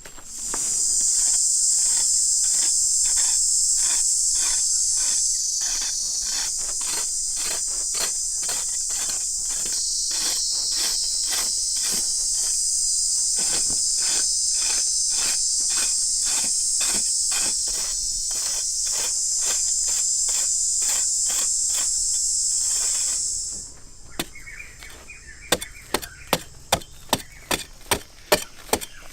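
High, continuous insect buzz, like a cicada chorus, that cuts off abruptly near the end. Sharp clicks repeat about twice a second behind it and stand out once the buzz stops.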